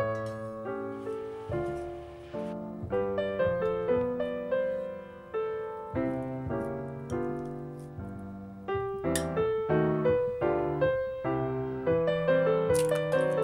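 Background piano music: a gentle melody of struck notes, each fading away, with a couple of brief clicks about nine seconds in and near the end.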